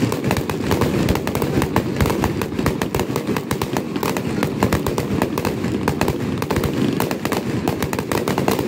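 Fireworks display: a rapid, unbroken barrage of aerial shells bursting and crackling, many bangs a second over a low rumble.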